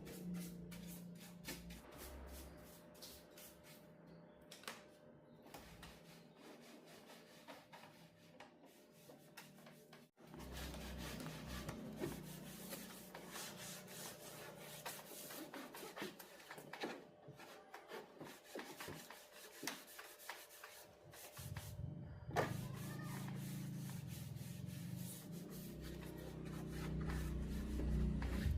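Hands working on a flat-screen TV during repair: scattered small clicks, taps and rubbing of parts being handled, with an abrupt cut about ten seconds in and a low hum in the latter part.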